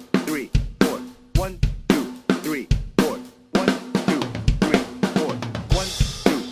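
Tama Starclass acoustic drum kit played in a rock groove with a drum fill: evenly spaced drum and bass drum strokes with ringing heads, a quicker run of strokes a little past halfway, and a cymbal crash near the end.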